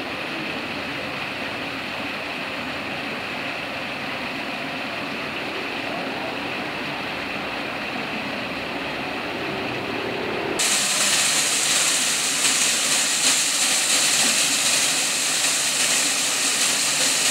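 Water from a cascade wall fountain and its row of foam jets, a steady rushing, splashing hiss. About ten seconds in it suddenly turns louder and hissier.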